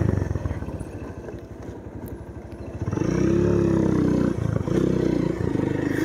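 Motorcycle engine running while riding, quieter at first, then pulling harder and louder from about three seconds in, with a brief drop soon after four seconds.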